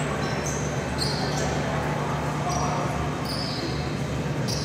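Basketball court sounds in a gym: short high-pitched sneaker squeaks and ball bounces on the hardwood floor, over a steady low hum.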